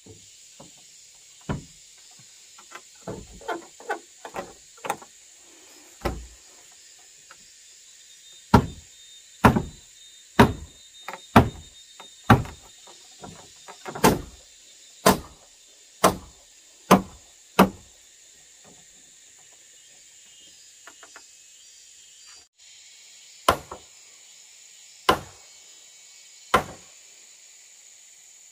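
Blows knocking a timber beam down into the joint at the top of a wooden post in a house frame. A few lighter taps come first, then about ten heavy blows roughly one a second, a pause, and three more blows near the end.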